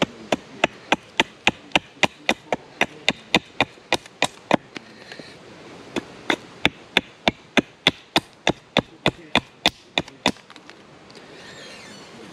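Rapid, even sharp knocks of wood on wood, about three or four a second, in two runs with a short pause in the middle, as a green-wood mallet is worked on a tree-stump chopping block.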